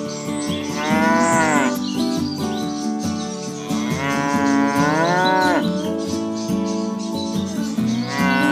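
Cattle mooing: three long moos that swell and bend in pitch, the middle one longest and the last running on past the end, over steady sustained tones.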